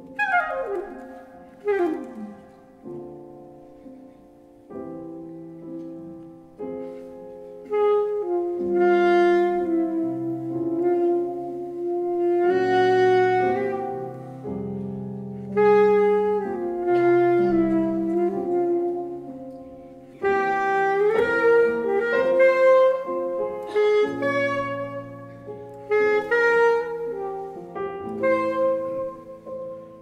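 Live jazz duo of saxophone and grand piano: the saxophone plays a melody of long held notes over piano chords. The music is quieter for the first several seconds and grows louder about eight seconds in.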